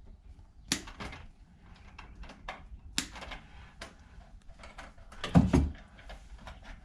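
Close handling sounds of vinyl electrical tape being wrapped around a wire: scattered sharp clicks and short crackles, with a dull thump about five seconds in.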